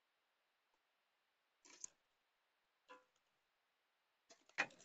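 A few soft wooden clicks and clacks as dry split kindling sticks knock together while being laid onto a small fire, with the loudest near the end.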